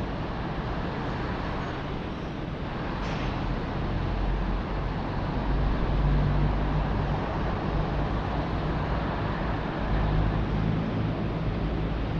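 City street traffic: a steady hum of passing vehicles, with a low engine rumble that swells about halfway through and again near the end.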